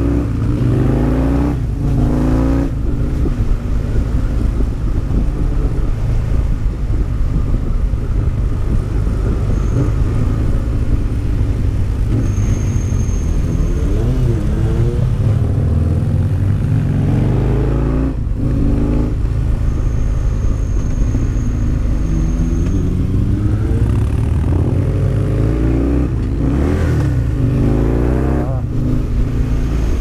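Husqvarna Nuda 900's parallel-twin engine running on a steep downhill ride through hairpins, its revs repeatedly rising and falling with brief breaks as the throttle is closed and opened or gears are changed.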